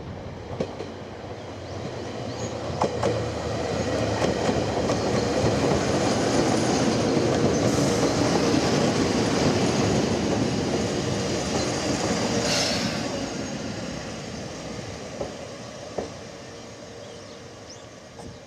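A Chichibu Railway electric commuter train on the move, its sound building to a peak midway and then fading, with wheels clicking over rail joints. A brief hiss comes about twelve seconds in.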